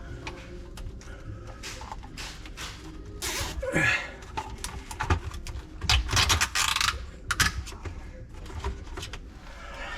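Plastic zip ties being threaded and pulled tight around a hose under a sink: rasping ratchet pulls twice, with clicks and handling noises and a short falling squeak about four seconds in.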